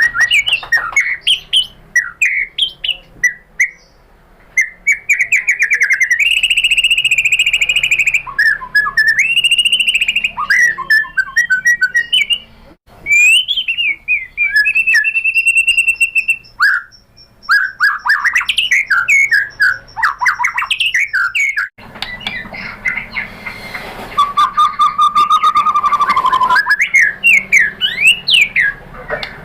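White-rumped shama singing a varied song: long clear whistles, quick trills and rapid clicking runs, in phrases broken by short pauses.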